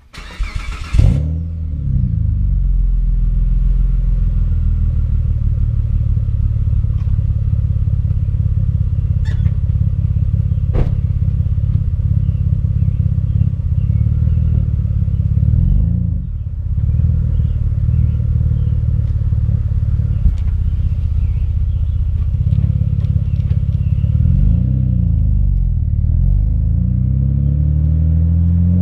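2009 Mitsubishi Eclipse GT's 3.8-litre V6 starting with a brief burst as it catches, then idling steadily through the exhaust. In the second half the engine note dips and rises a few times, and it climbs near the end as the car moves off.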